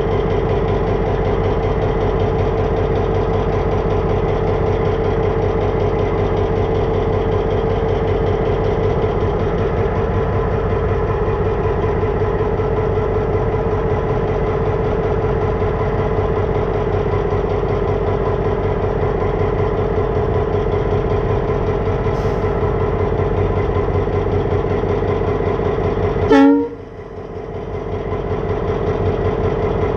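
Diesel switcher locomotive engine running steadily under a constant whine, heard from aboard the locomotive. About 26 seconds in, the sound cuts off abruptly with a brief falling sweep.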